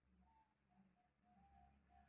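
Near silence, with very faint cooing of a zebra dove (perkutut): a string of short, soft notes.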